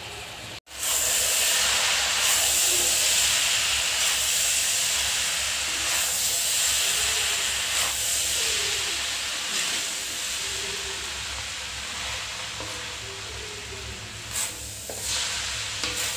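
Chowmein noodles with paneer sizzling in a hot iron kadhai as they are tossed and stirred: a steady frying hiss that starts abruptly just under a second in and slowly eases, with a few knocks of the stirring near the end.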